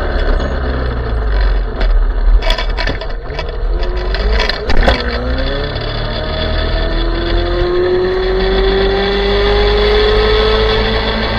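ME1000 electric mini bike's motor whining as it rides, with a few sharp knocks and clatters in the first half. From about the middle the whine climbs steadily in pitch as the bike gathers speed.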